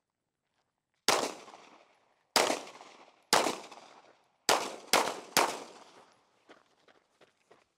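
Six gunshots in two strings of three, one string per target: three shots about a second apart, then three quicker ones about half a second apart, each ringing out briefly. Faint small clicks follow.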